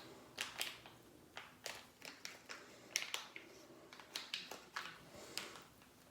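Small packet being crinkled and torn open by hand: irregular sharp crackles and crinkles, a few each second.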